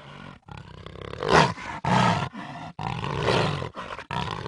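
Jaguar roaring in a series of short, harsh calls separated by brief breaks, the loudest about a second and a half in.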